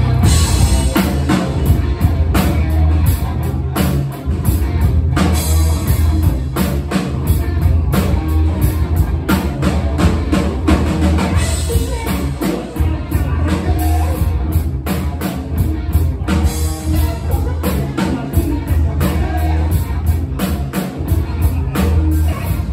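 Live rock band playing: electric guitar, bass guitar and drum kit, with heavy bass and a steady drum beat.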